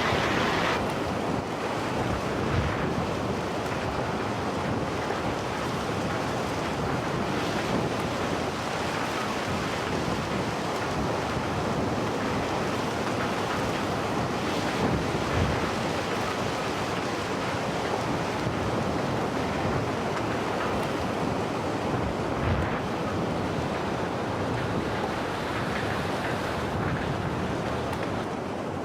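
Fast-flowing floodwater rushing steadily, with wind buffeting the microphone.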